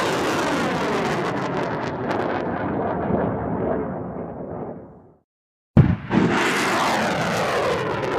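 Rocket launch roar sound effect: a loud rushing roar that fades out about five seconds in, then cuts back in abruptly with a sharp blast just before six seconds.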